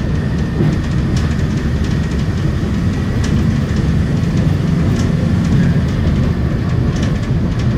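Steady low rumble of a moving vehicle heard from inside its cabin, with a faint high whine and a few light ticks and rattles.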